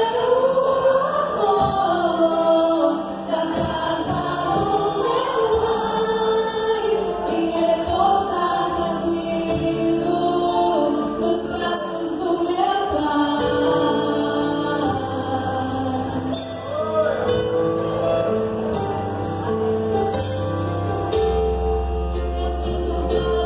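Gospel-style song with a group of voices singing in harmony over a sustained accompaniment; a low bass line comes in about halfway through.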